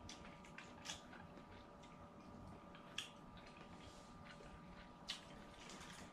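Faint eating sounds at a meal: three short clicks about two seconds apart over a steady faint hum.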